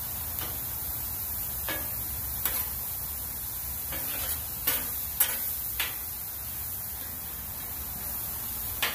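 Metal spatula scraping and clicking against a flat-top griddle as vegetables are stirred and turned, with a handful of sharp scrapes spread through. Under it runs a steady sizzle of the vegetables frying on the hot griddle.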